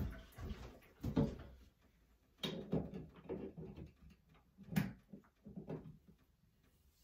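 Running water stops about one and a half seconds in, followed by a series of irregular knocks and clunks from hands working at a handheld shower head's connection, which is being tightened because it leaks.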